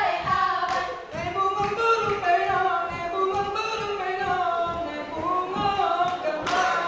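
A group of dancers singing together a cappella in a wavering, melismatic line, the traditional unaccompanied song of the Acehnese Rampai Aceh dance, with scattered claps and slaps of their hands.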